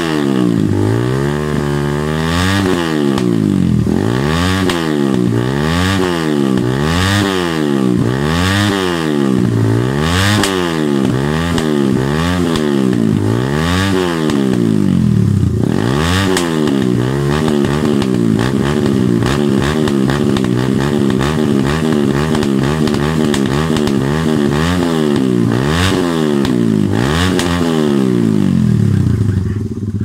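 Suzuki Raider R150's single-cylinder four-stroke engine revved repeatedly at standstill through an Orion open-pipe aftermarket exhaust, a quick blip about every second and a half. In the second half the revs are held higher and swing up and down more slowly, then drop back to idle at the end.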